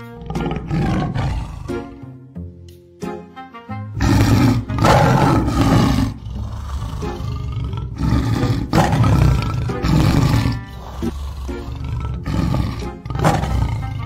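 Jaunty background music for the first few seconds, then a series of loud recorded tiger roars from about four seconds in, played as a prank beside a stuffed toy tiger.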